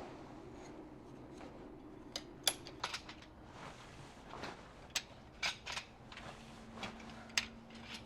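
Scattered sharp clicks and clinks of camping gear being handled during packing up, starting about two seconds in, over a steady low hum.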